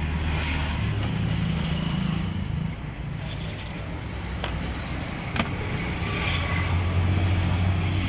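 A motor vehicle's engine running in road traffic, a steady low hum that swells near the start and again later, with a few short clicks.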